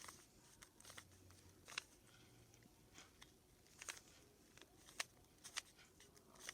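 Faint plastic clicks of a 3x3 Rubik's Cube's layers being turned by hand: a handful of short, sharp clicks at uneven intervals.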